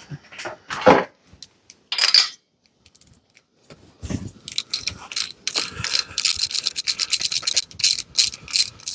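A few knocks and scrapes as a socket is fitted over the spark plug of a Briggs & Stratton Intek engine. About four seconds in, a hand ratchet starts clicking rapidly, about seven clicks a second, as the plug is backed out.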